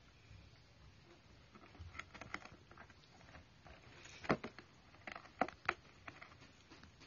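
Cats biting and clawing at a cardboard box flap: scattered short scratching and tearing sounds, a few louder ones in the second half, the loudest about four seconds in.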